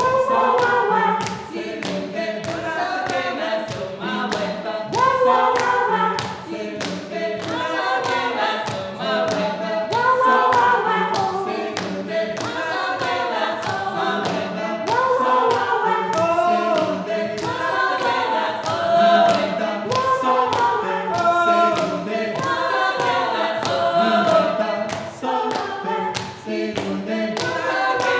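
A cappella vocal group singing an improvised circlesong: several voices in layered, repeating phrases over a steady percussive pulse.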